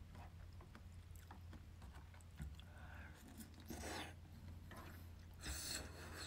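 Faint sounds of a person eating rice and stew with a spoon: chewing, small clicks of the spoon against the bowls, and two short hissing sounds about four and five and a half seconds in, over a steady low room hum.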